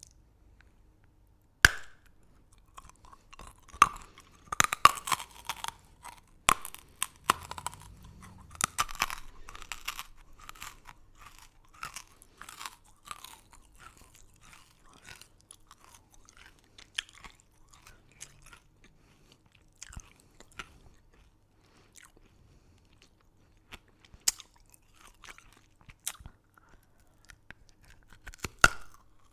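Close-miked crunching and chewing of crunchy candy. A sharp bite snaps about two seconds in, followed by a dense run of loud crunches that thins into slower, quieter chewing. Two more sharp crunches come near the end.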